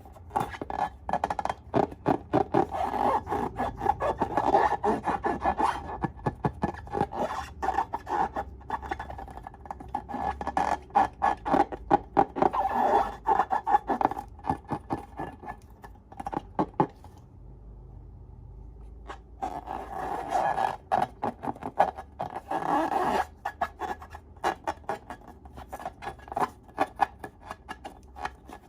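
Slime being worked by hand, squished and stretched, with dense sticky clicking and crackling in bouts and a short lull about two-thirds of the way through.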